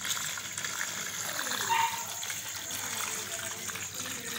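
Kitchen-sink wastewater pouring steadily from a tube into a plastic tub, with a short higher-pitched sound about two seconds in.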